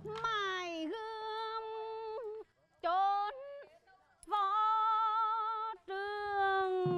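A woman singing Tuồng (Vietnamese classical drama) in a single voice: long held notes with a wavering pitch, in about five phrases broken by short pauses, with a falling slide at the start and again at the end.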